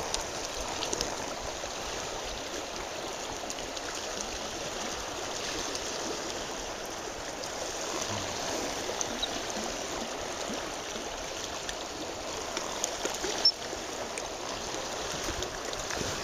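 River water rushing steadily past the bank, with a few light clicks and one sharper knock near the end.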